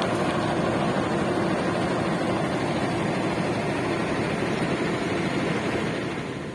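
KAI CC 206 diesel-electric locomotive passing at close range, its engine running loud and steady. About six seconds in the sound drops off as the cab end goes by and the container flatcars behind it roll past.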